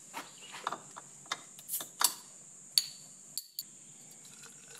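A run of sharp clicks and clinks from a glass beer bottle and a stainless steel tumbler being handled, the loudest about two seconds in and again shortly after. Beer then starts pouring into the tumbler near the end.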